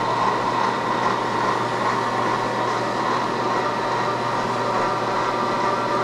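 Milling machine with a ProtoTrak SMX control turning a 7/8-inch drill bit at low spindle speed under power down feed, drilling into boiler plate: a steady, even running sound with a constant whine.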